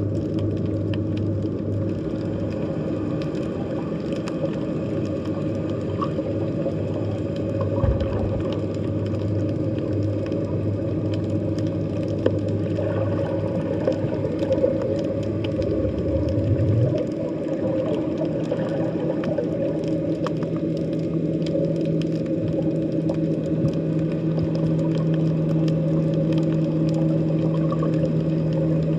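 Underwater sea ambience: a steady low hum of several tones whose pitch steps up about 17 seconds in, under scattered faint clicks.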